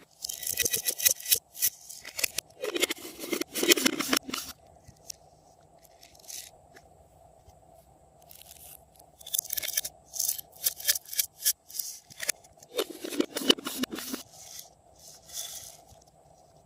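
Glossy slime being pressed and squished by hand, giving a rapid run of crackling, popping clicks in two bouts with a short lull between them.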